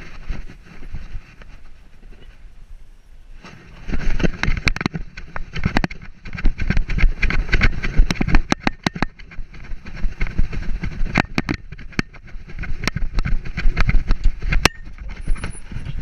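Handling noise from a GoPro strapped to a poodle's back as the dog moves: the mount rubs and knocks, making an irregular run of clicks and thumps over a low rumble. It is quieter for the first three seconds or so.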